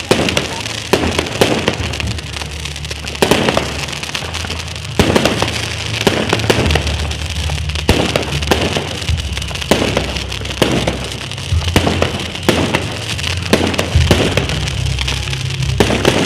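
Aerial fireworks display: shells bursting with repeated sharp bangs at irregular intervals, one or two a second, over a continuous crackling hiss from the glittering stars.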